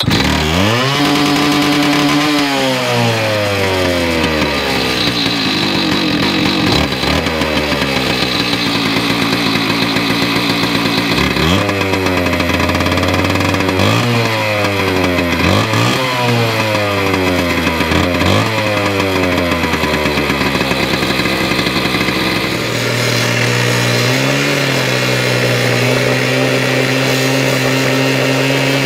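Hilti two-stroke gas cut-off saw revved over and over, its pitch winding down after each rev. About 23 seconds in it settles to a steady high speed as the abrasive wheel bites into the steel rail, with a harsh grinding hiss over the engine.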